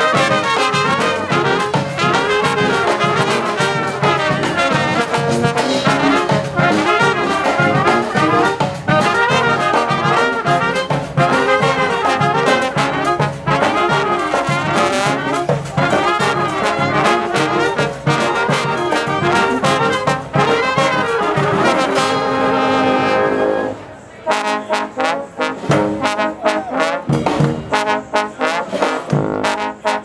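Street brass band playing an up-tempo tune with trumpets, trombones, sousaphone, saxophones and drums. About 24 seconds in, the full band drops away to sparse, choppy hits and short horn notes.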